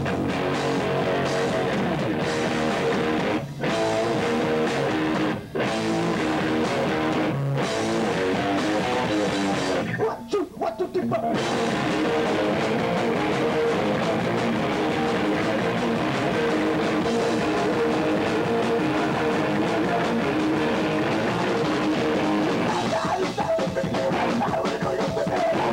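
Loud live hard rock: distorted electric guitars and drum kit playing hard. The band stops sharply three times in the first eight seconds, then drops out for about a second and a half near the middle before crashing back in.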